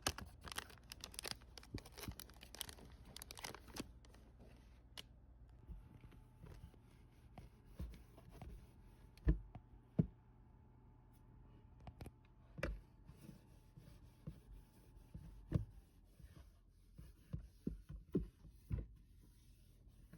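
Handling sounds: a quick burst of rustling and crinkling, then scattered knocks and taps.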